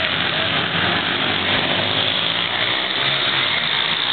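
Several small pit-bike engines, 50 to 138 cc, running hard as the bikes race around a dirt track, blending into one steady engine din.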